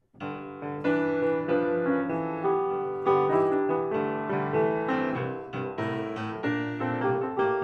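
Solo piano music: a melody of struck notes over chords, each note ringing and fading.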